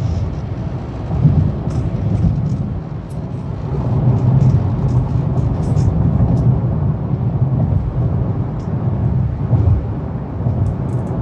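Road rumble inside the cabin of a 2018 Honda Accord Sport on the move, broken by short, sharp rattling clicks at irregular moments. The rattles come from somewhere in the brand-new car.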